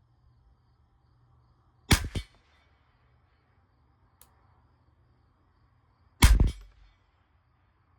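Two shots from a Ruger 10/22 Target Lite semi-automatic .22 LR rifle firing SK Rifle Match, about four seconds apart, each a sharp crack with a brief tail.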